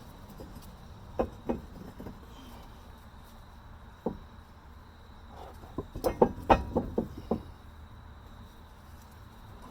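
Scattered sharp knocks of hard objects being handled: two close together about a second in, one at about four seconds, then a quick run of louder clatters about six seconds in.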